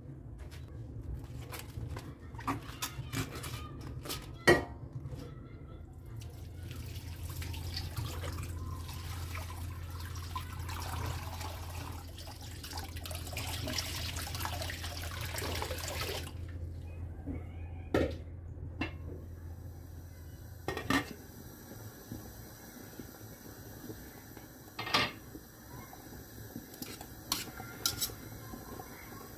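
Knocks as a cabbage is handled, then water pouring from a jug over the cabbage into a stainless steel pot for about ten seconds. Later a metal utensil clinks against the pot's side a few times as the cabbage is turned in the water.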